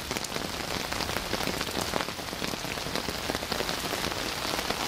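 Steady rain falling onto standing water in a brick-lined pit and the wet bricks around it: an even hiss made of countless small drop impacts.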